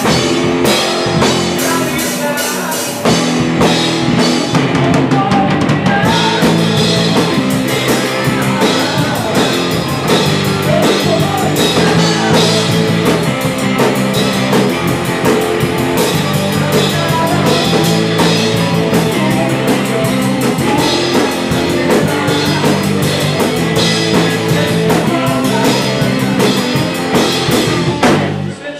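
Live rock band playing: a drum kit with steady cymbal and drum hits over electric guitars and bass, picked up close to the drums. The band breaks off for a moment at the very end.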